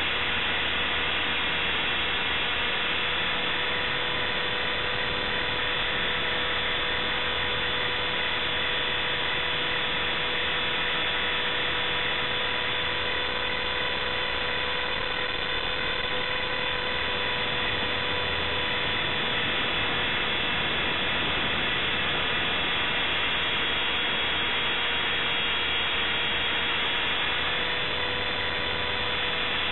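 Align T-Rex 450S electric RC helicopter in flight, heard from a camera mounted on the airframe: a steady, high-pitched motor and gear whine over rotor noise.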